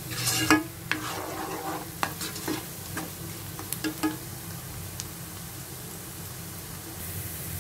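Chopped onions sizzling in hot oil on high heat in a nonstick pan, stirred with a silicone spatula that scrapes and taps against the pan. The stirring strokes stop about five seconds in, leaving the steady sizzle.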